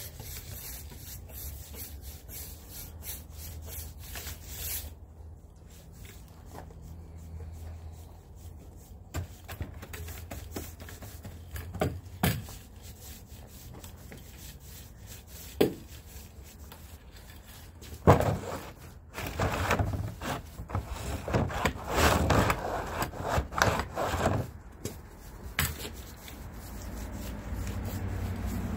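A stain applicator rubbing across wooden deck boards, stroke after stroke, as stain is worked into the porch decking. The strokes are sparse and quiet at first, with a few knocks, then come thick and loud for several seconds about two-thirds of the way through.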